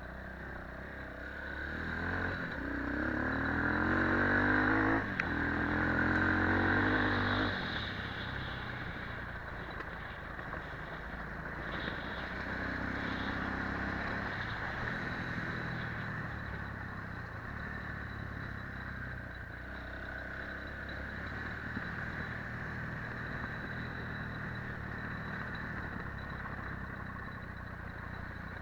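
Quad ATV engine revving up hard for several seconds, with a single sharp click about five seconds in, then running on more steadily at lower revs.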